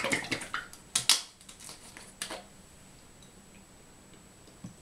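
Scissors snipping open the corner of a small carton of cream: a short rustle, two sharp snips about a second in and one more a second later, then quiet while the cream is poured.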